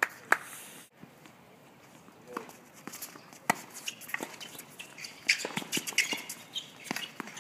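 Tennis ball struck by rackets and bouncing on a hard court during a doubles rally, with players' footsteps: one sharp hit about three and a half seconds in, then a quick run of hits, bounces and footfalls over the last two seconds.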